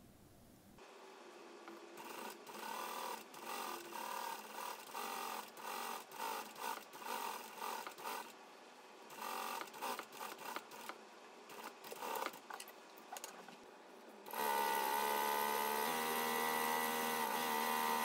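Industrial sewing machine stitching in short start-stop runs, then running steadily and louder at full speed for the last few seconds.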